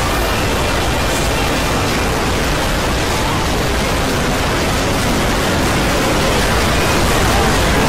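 Dense, steady wash of noise across all pitches: many video soundtracks layered on top of one another until they blur into a hiss-like roar, with faint traces of voices and music buried inside.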